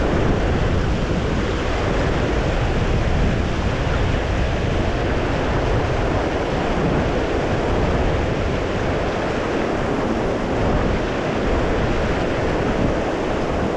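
Steady rush of river water running through a riffle, with wind rumbling on the microphone.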